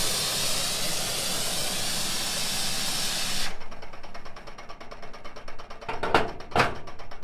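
Gas torch flame hissing, cut off suddenly about three and a half seconds in. Then a centrifugal casting machine's arm whirring round in its tub with a fast, even ticking beat, throwing molten sterling silver into the flask, with two knocks near the end.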